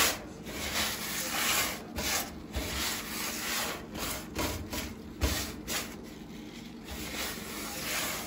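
A sponge scrubbing the metal well under a lifted stovetop, in repeated back-and-forth rubbing strokes about two a second, wiping up spilled oil and grease.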